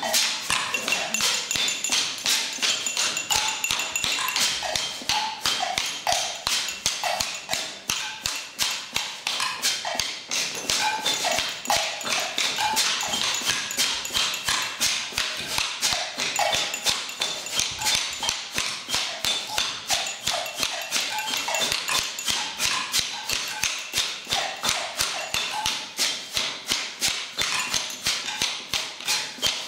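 A steady run of sharp taps, about two or three a second, with short higher-pitched sounds between them.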